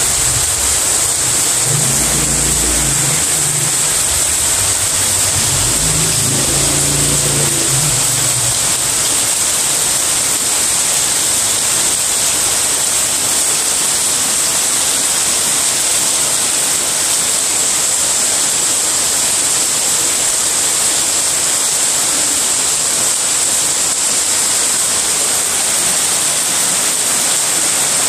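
Heavy rain pouring steadily, splashing on floor tiles and dripping off a planter and foliage. A low engine-like hum comes and goes under it during the first eight seconds or so.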